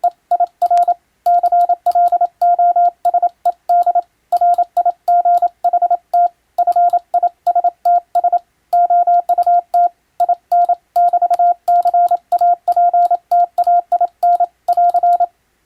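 Morse code keyed on a telegraph key, heard as a single steady tone of about 700 Hz switched on and off in short and long marks with brief pauses between words. It stops shortly before the end.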